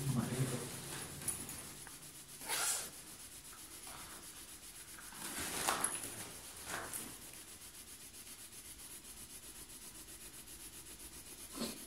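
A few faint rustling scrapes, three of them in the first seven seconds, over a low background hiss.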